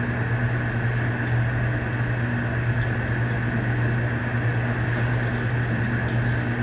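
Electrolux LPE16 washing machine running through a wash cycle, a steady low motor hum with an even higher-pitched whir over it and no change in level.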